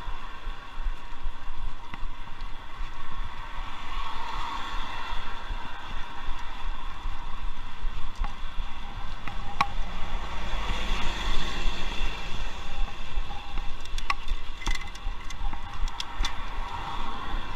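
Riding noise from a moving bicycle: wind buffeting the handlebar-view camera's microphone, with traffic passing on the road. A few sharp clicks, likely the bike rattling over bumps, come in the second half.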